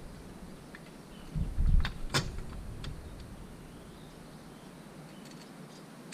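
Door handle and latch assembly being handled and fitted back in place: a dull knock followed by a few sharp clicks about two seconds in, then only faint background.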